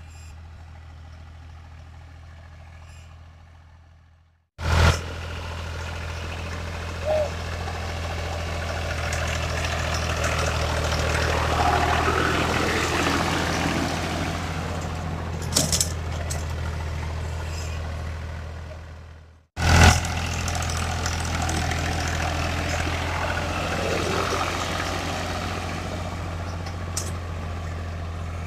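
New Holland 480 tractor's diesel engine running steadily under load as it pulls a seed drill, louder in the middle as it passes close. The sound drops out briefly twice and comes back with a click.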